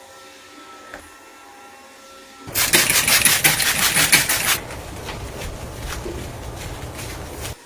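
Rapid rhythmic scrubbing, about six strokes a second, loud for about two seconds and then softer and less regular, cutting off suddenly near the end.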